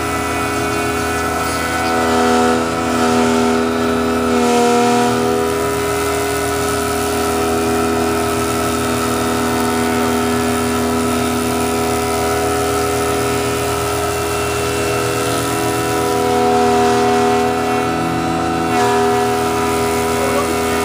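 Power-tool motor running steadily, its pitch shifting slightly a few times.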